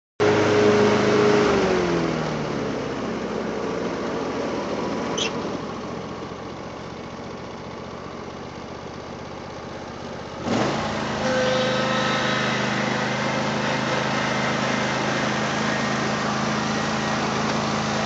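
Riding lawn mower engine. It slows from a fast run to a lower, quieter running speed over the first two seconds, is throttled up with a sharp rise in pitch about ten seconds in, and then runs steadily at speed.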